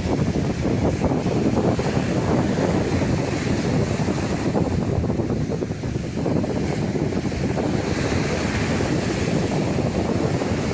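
Sea surf washing onto a beach in a continuous, steady rush, with wind buffeting the microphone.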